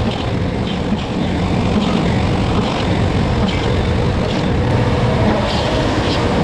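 Loud, steady running noise of machine-shop equipment machining aluminum logistic track, with scattered faint ticks over it.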